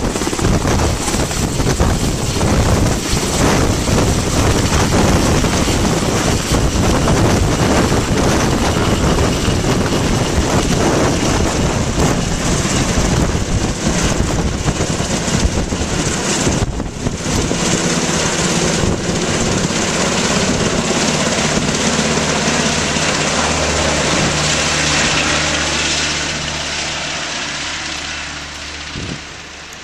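MH-60S Knighthawk helicopter's main rotor and twin turbine engines lifting off and flying away: loud, rapid rotor chop at first, settling into a steadier low rotor hum about halfway through, then fading near the end as it climbs away.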